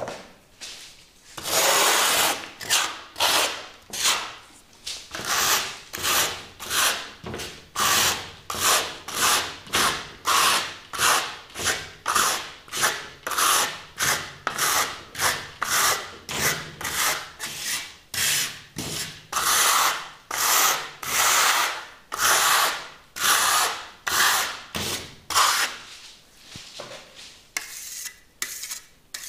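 Steel trowel spreading and smoothing wet architectural concrete plaster on a wall: a steady run of scraping strokes, about three every two seconds, that stops a few seconds before the end.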